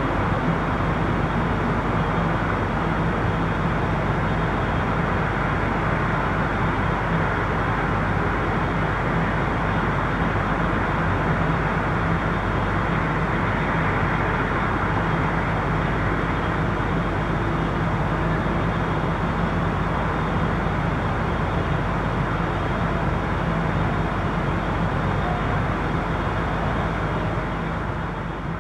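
Busy street traffic, recorded from a window: a steady, continuous wash of passing vehicles and tyre noise with a low hum underneath, swelling gently now and then. It starts to fade out near the end.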